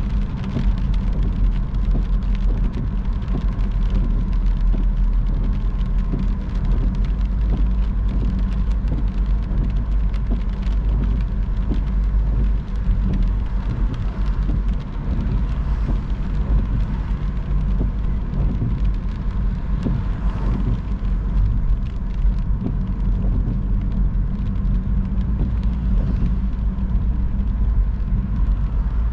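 A car driving on a wet road in the rain: a steady low rumble of tyres and engine, with many small ticks of raindrops throughout.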